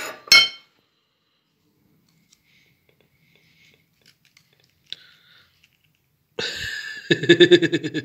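A metal fork clinks once, sharp and ringing, against a ceramic plate, followed by a few faint light taps as it prods a microwaved whole onion. A voice comes in near the end.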